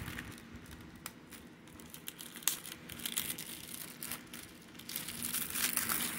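Thin plastic shrink wrap crinkling and tearing as it is peeled off a Blu-ray case by hand, busier and louder near the end.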